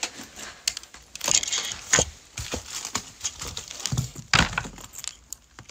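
Rustling and clicking handling noises close to a phone's microphone as small objects and a plush pouch are handled, with a heavier knock about four and a half seconds in.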